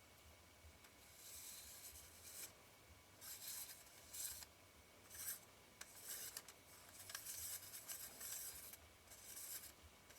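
Faint, repeated short scraping strokes of a metal retaining ring being turned by hand into the threads of a Nikon Ai-Nikkor 135mm f/2 lens barrel, about eight strokes with short pauses between.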